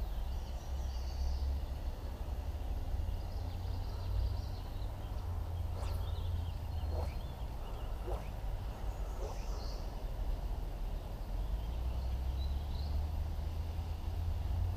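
Outdoor ambience: a steady low wind rumble on the microphone over an even background rush, with birds chirping now and then and a few faint clicks around the middle.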